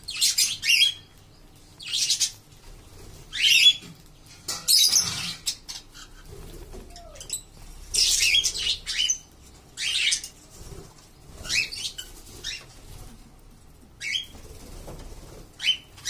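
A flock of budgerigars and cockatiels calling, with short, scratchy high calls coming one every second or two.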